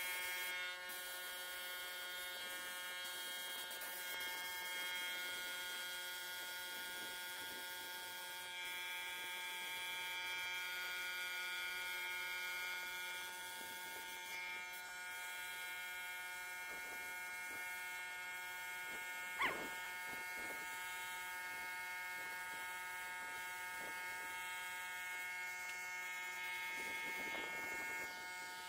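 Steady electric motor buzz of paint-spraying equipment, with the hiss of a spray gun as enamel is sprayed. A single sharp click comes about two-thirds of the way through.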